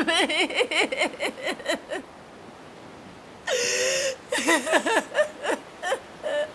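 A woman sobbing hard in quick, gasping, wavering cries, breaking off for a moment, then one short held wail about three and a half seconds in, followed by more broken sobs.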